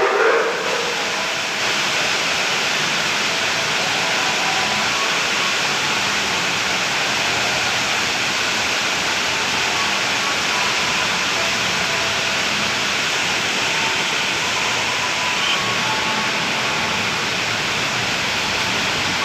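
Heavy rain pouring down steadily, making a dense, even hiss.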